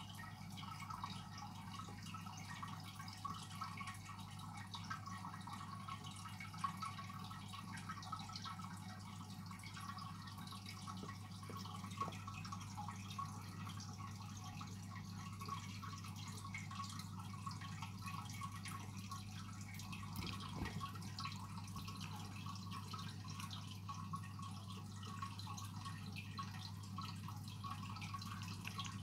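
Aquarium filter running: a steady low hum with water trickling and dripping.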